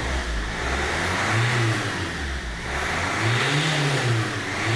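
Land Rover Freelander TD4's 2.0-litre four-cylinder common-rail diesel engine being revved from idle in short blips, each rising and falling back within about a second: twice, with a third starting at the very end. It revs freely, running well on its newly fitted second-hand high-pressure fuel pump.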